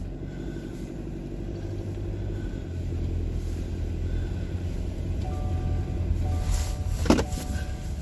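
Car engine and road noise heard from inside the cabin while driving along a wet road: a steady low rumble, with one sharp knock about seven seconds in.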